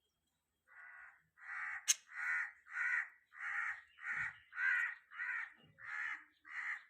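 Budgerigar giving a run of about ten harsh, raspy calls, evenly spaced at under two a second, with a sharp click about two seconds in.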